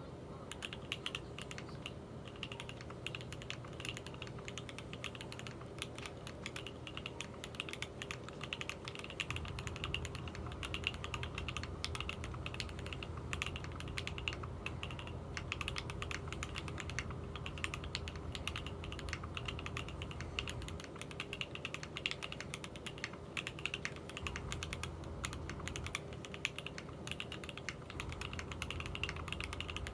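Continuous typing on a custom 60% mechanical keyboard with NK Silk Yellow linear switches, GMK keycaps, a polycarbonate half plate and modded GMK screw-in stabilizers in an aluminium case: a steady stream of quick key strokes, over a faint steady hum.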